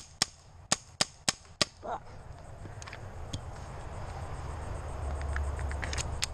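Kingman Eraser 11mm paintball pistol firing a quick string of about six shots within a second and a half, each a sharp snap. A few fainter snaps follow later on.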